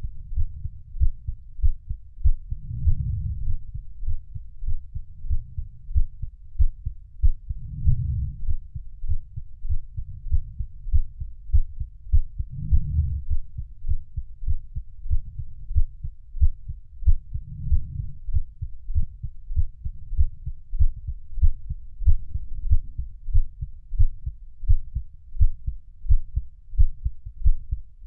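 Recorded heartbeat: low, regular thuds repeating steadily, with a low swell in the sound about every five seconds.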